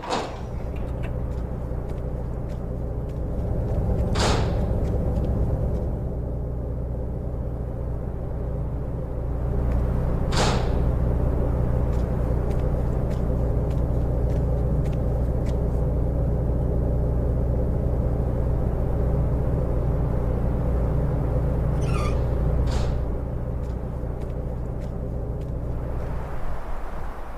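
Chevrolet SUV's engine running steadily as the car pulls in and idles, with a few short sharp knocks along the way; the engine cuts off near the end.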